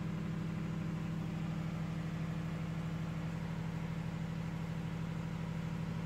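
Steady low machine hum, like an idling engine, with a fast even pulsing and no change in level or pitch.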